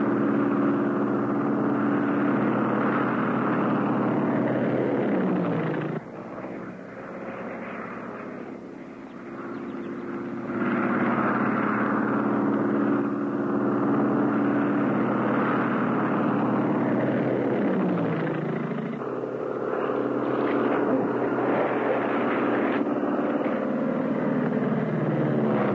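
Biplane's propeller engine running steadily. Its pitch slides down three times, and the sound drops lower for about four seconds after the first slide.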